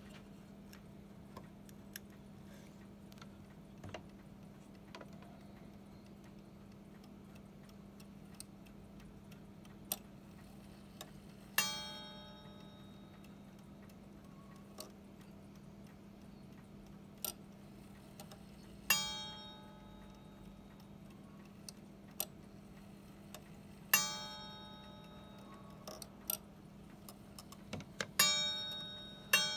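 Small antique oval four-glass regulator mantel clock striking its bell as its minute hand is turned by hand, with light ticks and clicks between. There are three single strokes several seconds apart, each ringing out, then two strokes close together near the end.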